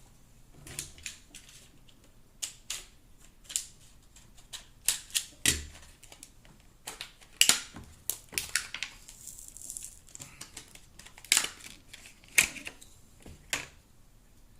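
A new Kershaw Kuro knife's retail packaging being opened by hand: a run of irregular sharp clicks and snaps with a short stretch of rustling, the two loudest snaps about seven and twelve seconds in.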